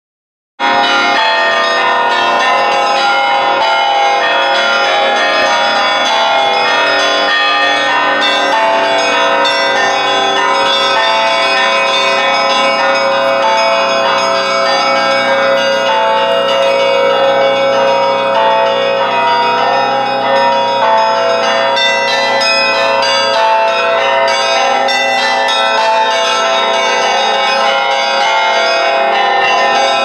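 Russian Orthodox church bells rung in a festive peal: many bells of different pitches struck in a dense, continuous ringing that starts abruptly about half a second in.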